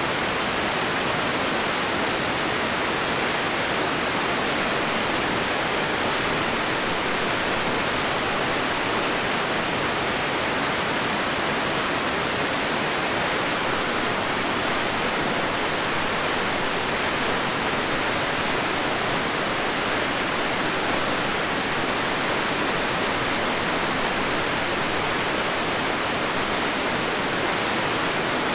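Fast mountain river water rushing over rocks, a steady, even sound of water that does not change.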